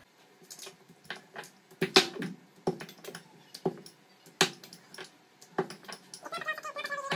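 Irregular sharp knocks and clicks as kitchen tools are handled and set down: a plastic gujia mould and a wooden rolling pin on a round rolling board, the loudest knock about two seconds in. Near the end a pitched, wavering squeak sounds for about a second.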